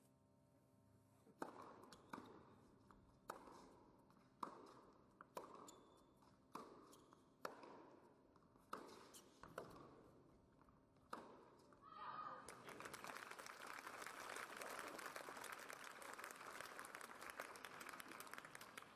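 Tennis rally on an indoor hard court: about ten sharp ball strikes and bounces roughly a second apart, each with a short echo in the hall. Crowd applause starts a little after halfway through and carries on to the end.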